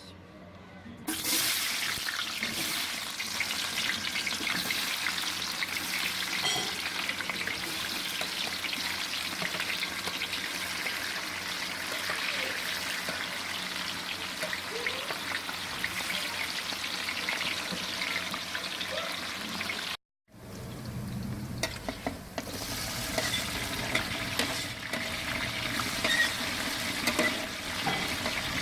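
Food sizzling as it fries in hot oil, with a steady hiss that starts suddenly about a second in. After a brief break about two-thirds of the way through, the sizzling resumes with scattered clinks and scrapes of stirring.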